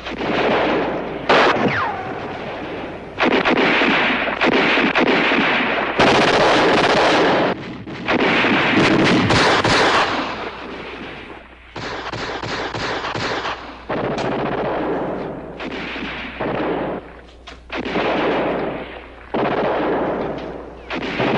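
Battle gunfire: rifle and machine-gun fire in bursts lasting a second or two each, with short breaks between them.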